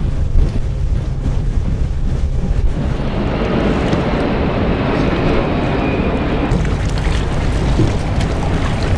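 Small fishing boat's outboard motor running steadily, with wind buffeting the microphone and a rushing hiss of water and wind that thickens about three seconds in.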